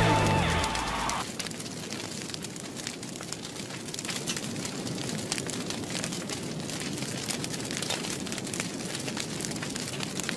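Log fire crackling, with a steady rush of flames and many sharp irregular pops. The last of a guitar song fades out about a second in.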